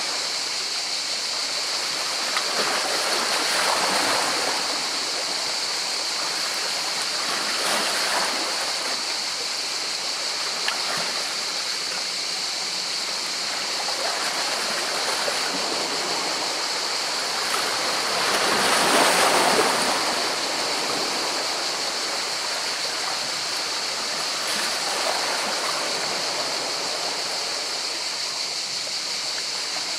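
Sea waves washing against rocks: a steady wash of water with a swell every few seconds as waves break, the largest about two-thirds of the way through.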